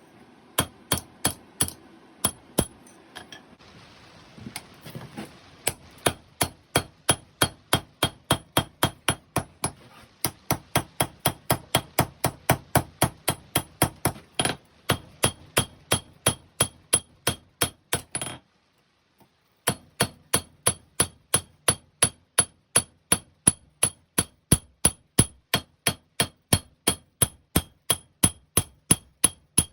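Hammer blows on hot 5160 steel over an anvil, struck in a steady rhythm of about three a second, each with a bright metallic ring: the blade being drawn out during forging. The hammering breaks off for about a second just past the middle, then resumes.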